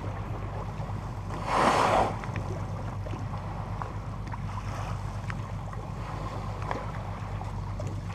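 Fishing boat's engine running steadily in gear with a low hum, water and wind around the hull. A brief whoosh about one and a half seconds in.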